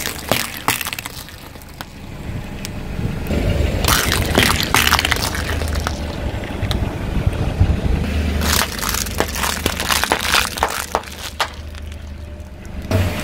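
A car tyre rolling slowly over small objects and crushing them, with clusters of cracking and crunching over a low rumble. The crackling is loudest around four to five seconds in, and again from about eight and a half to eleven seconds.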